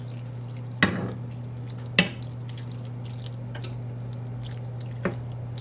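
Chicken stock being added to a pan of chicken and leeks: a few sharp drips and taps, one about a second in, another a second later and a last one near the end, over a steady low hum.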